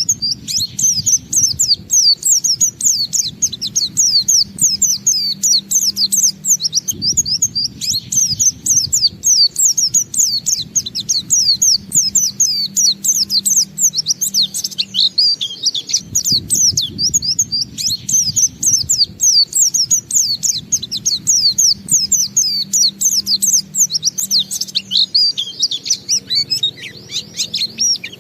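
White-eye (pleci, Zosterops) singing in the 'ngalas' style: a long, unbroken run of rapid, high, downward-sliding notes with hardly a pause for breath. A faint low noise runs underneath.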